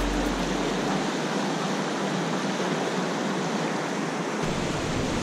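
Rushing river rapids: a steady, unbroken rush of white water over rocks.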